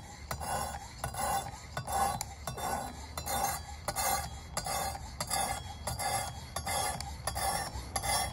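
Sharpening stone of a Work Sharp guided knife sharpener scraping back and forth along a knife's edge, an even rasping stroke about twice a second, which stops near the end.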